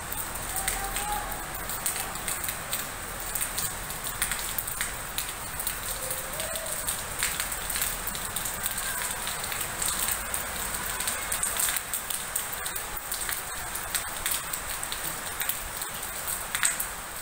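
Monsoon rain falling, a steady hiss with many small drops ticking on nearby surfaces.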